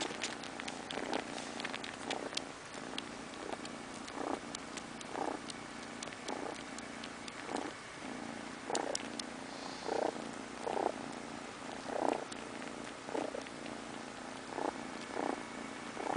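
Tabby-and-white kitten purring steadily as it falls asleep, the purr swelling in regular pulses every half second to a second, with scattered faint clicks.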